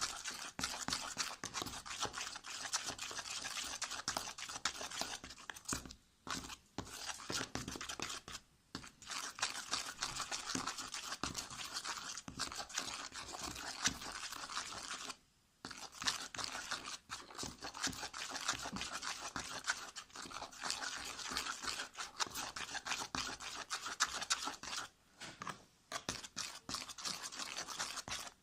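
Slime mixture being stirred in a container: a steady, scratchy scraping and crackling of the utensil against the bowl, stopping briefly a few times.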